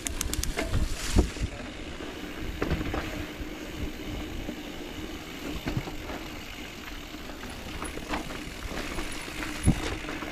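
Mountain bike being ridden along a dirt trail: a steady low rumble of tyres and frame, with scattered knocks and rattles over the rough ground, the sharpest about a second in and again near the end.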